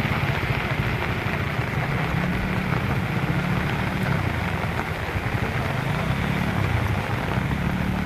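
Small petrol engines running at low, slowly wavering revs over a steady hiss of rain.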